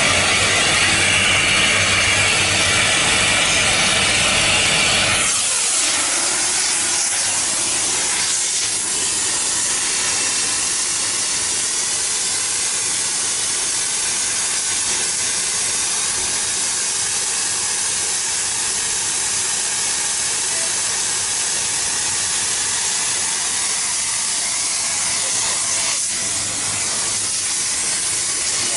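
Rail-weld preheating torch flame burning in the sand mould, a loud steady rushing with a low hum, cutting off sharply about five seconds in, the end of the preheat that brings the rail ends to around 750 degrees. A steady, quieter hiss carries on after it.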